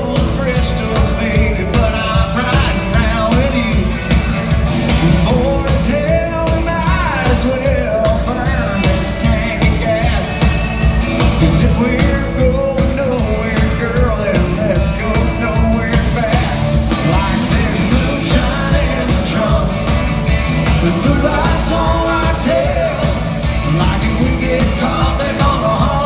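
Live country band playing loudly, with a male lead singer, heard from the audience in a large arena.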